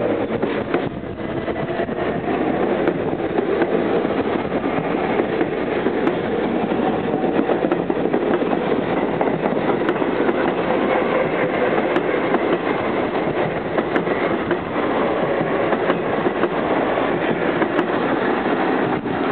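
New York City subway train of R44 cars pulling out of a station and rolling past at close range: a steady, loud noise of steel wheels running on the rails, with a few faint clicks.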